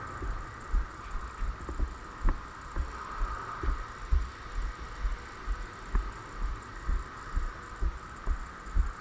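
Footsteps of a walking player, picked up by the camera the player is wearing as dull thuds about twice a second, over a steady faint hum.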